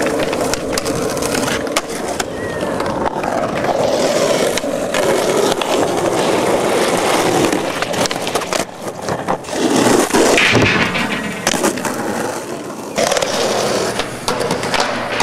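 Skateboard urethane wheels rolling over rough concrete, broken by sharp wooden clacks of the board popping and landing; the loudest clatter comes about ten seconds in.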